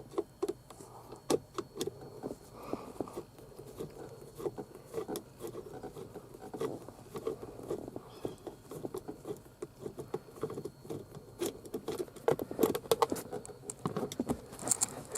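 Irregular small clicks, taps and scrapes of a screwdriver and hands working under a steering wheel, backing out the screw that holds the horn button.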